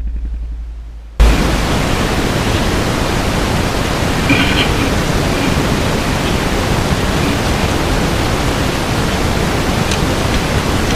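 Steady, loud rushing noise like a fan or blower running. It is cut off at the start, with only a low hum left, and comes back abruptly about a second in.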